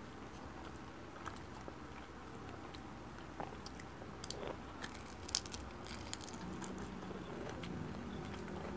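Close-up mouth sounds of a person biting and chewing crispy fried milkfish (bangus), with a run of sharp crunches in the middle.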